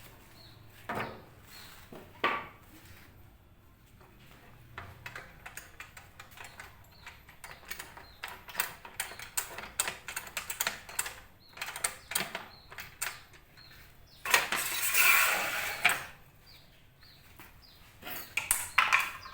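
Scattered metallic clinks and knocks of tools and metal parts being handled, with a louder, noisy stretch of about two seconds about three-quarters of the way through.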